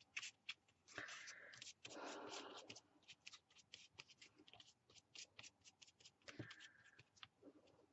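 Faint scratching and dabbing of a paintbrush over a paper jigsaw-puzzle piece and torn napkin paper. Many small ticks, with a few longer scratchy strokes about a second in and again near the end.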